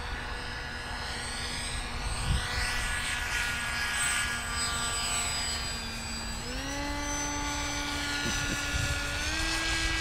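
Motors of a three-plane RC formation jet running with a steady, pitched whine during a low, slow fly-by. The sound swells and sweeps as the model passes close, then the pitch steps up twice, about six and nine seconds in, as the throttle is opened.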